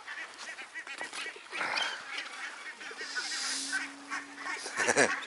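Waterfowl giving several short honking calls at the water's edge, the loudest call near the end.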